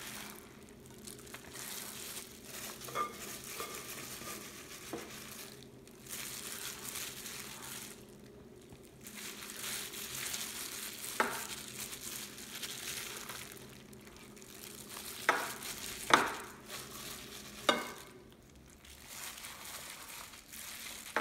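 Plastic-gloved hand rubbing chili seasoning paste into napa cabbage leaves: a wet squishing and crinkling of the plastic glove, stopping briefly now and then. Several sharp clicks come in the second half.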